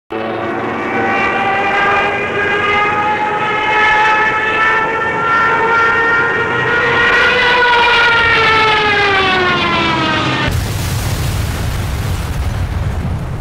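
Single-engine propeller plane flying past: a loud, steady engine drone whose pitch rises slightly, then falls as it goes by. About ten seconds in it gives way suddenly to a loud rushing noise with a deep rumble.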